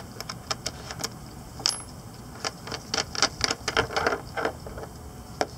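Metal waste deck fill cap on a sailboat's side deck being unscrewed with a deck fill key: a string of irregular metallic clicks and clinks as the key turns and the cap works loose.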